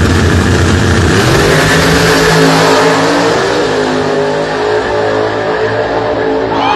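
Drag racing cars at full throttle launching off the start line about a second in and accelerating away down the strip, the engine note climbing as they pull away.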